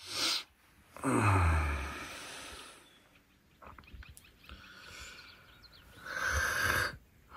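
A man's heavy breaths and a low groan falling in pitch about a second in, with faint rustling and small clicks in between and another loud exhale near the end.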